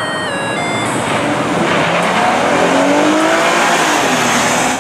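Police SUV accelerating away, its engine revving up and easing off in pitch over a loud rush of road and tyre noise. The sound cuts off abruptly at the end.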